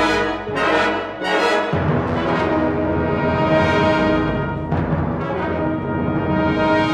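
Symphonic wind band playing a contemporary concert work, with the brass prominent. It opens with a few repeated accented chords about half a second apart. From about two seconds in the low instruments enter under a loud sustained chord.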